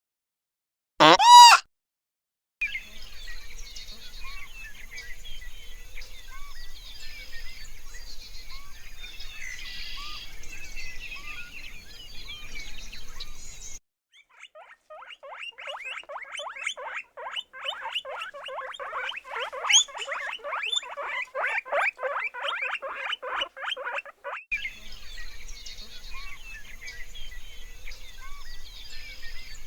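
Animal sounds: a rising tone just at the start, then birds chirping. They give way for about ten seconds to a fast, dense run of repeated animal calls, and the chirping returns near the end.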